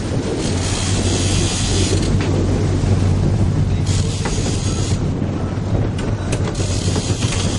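A sportfishing boat's engine running with a steady low drone over churning wake water. There are gusts of wind hiss on the microphone about half a second in, around four seconds in and near the end.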